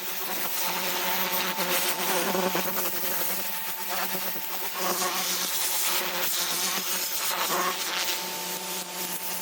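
Pressure washer running: a steady motor-and-pump hum with the hiss of the high-pressure water jet spraying over a car's body, the hiss swelling and easing a little as the spray moves.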